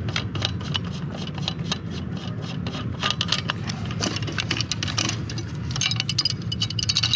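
Metal fittings on a sailboat's Harken roller-furler drum clicking and clinking in quick succession as they are turned and worked loose by hand during disassembly, with a brighter metallic jingle near the end.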